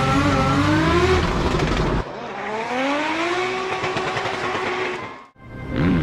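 Drift car engines at high revs. First a car is heard from inside the cockpit, its pitch rising and falling as it drifts. About two seconds in, the sound cuts to another drifting car whose engine climbs in pitch and holds high, then fades out briefly near the end.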